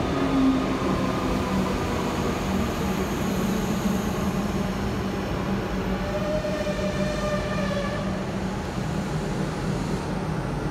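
Melbourne Metro suburban electric train running along the platform and slowing to a stop: a steady rumble of wheels on rail, with a whine coming in about halfway through.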